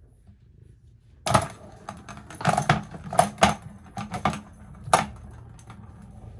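Plastic cat track toy rattling and clattering as a cat bats at it: a string of sharp knocks starting about a second in and stopping about five seconds in.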